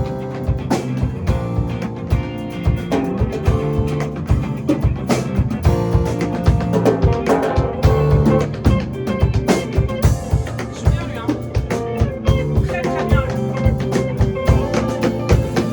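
Instrumental break of a blues-rock band: electric guitar playing over bass and a steady drum-kit beat.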